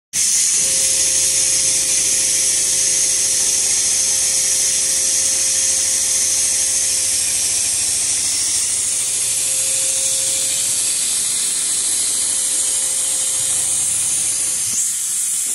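Richpeace automatic computerized sewing machine running, its sewing head stitching a panel with a fast, steady needle rhythm under a loud, steady hiss. The machine's hum stops near the end.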